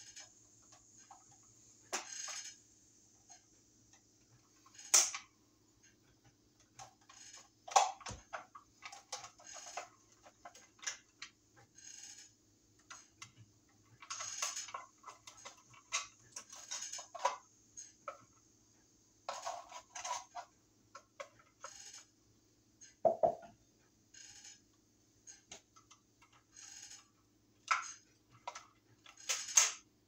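Hands and a hand tool working a wall receptacle and its wires: irregular small clicks, scrapes and rattles of plastic and metal, a few sharper snaps among them, over a faint steady hum.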